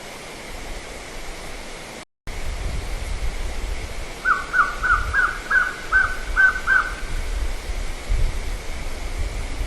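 A quick series of about eight short, high calls, each dropping in pitch, about three a second, over the steady hiss of a raw night field recording; a brief cut in the recording comes about two seconds in.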